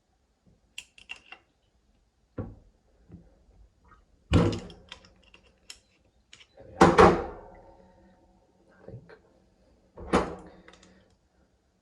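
Sharp metallic knocks and clanks with light clicks between, from tools and tap parts being handled while a tap's head and cartridge are worked apart. The loudest clank, about seven seconds in, rings briefly.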